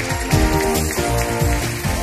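Television programme's opening theme music, an instrumental tune over a steady bass beat.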